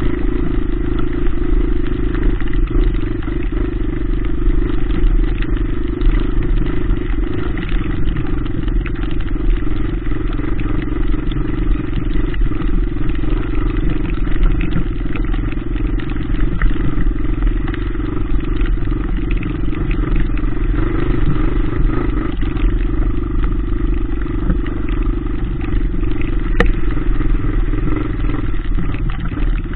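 Dirty Q26 125 cc four-stroke dirt bike engine running steadily while under way, heard from a handlebar-mounted camera, with frequent small knocks and rattles from riding over rough ground.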